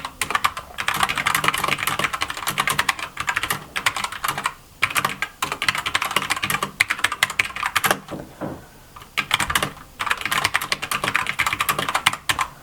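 Keychron K2 mechanical keyboard being typed on fast: quick runs of key clicks broken by a few short pauses.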